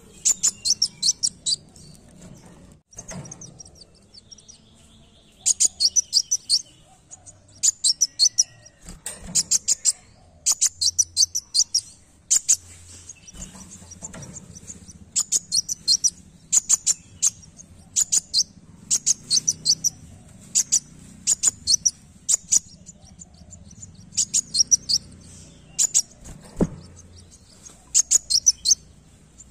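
Kolibri wulung sunbird singing: repeated bursts of rapid, sharp, high chirping notes, each burst about a second long, with short pauses between.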